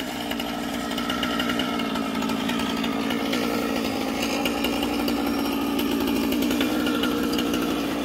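Chainsaw engine running at a steady speed.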